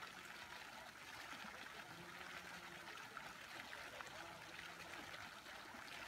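Fountain jets splashing into a pool: a soft, steady rush of falling water.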